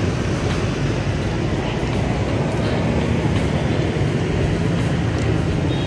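Steady low rumble of street traffic, with engine noise running continuously and never letting up.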